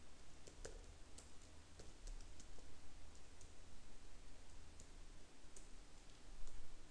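Faint computer keyboard keystrokes, irregular separate clicks as text is typed into form fields, over a low steady hum.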